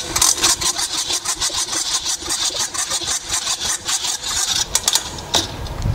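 A spring-driven hose reel's latch ratchet clicking very fast as the hose is pulled all the way off the drum, sped up until the clicks run together into an engine-like buzz, ending with a louder click near the end.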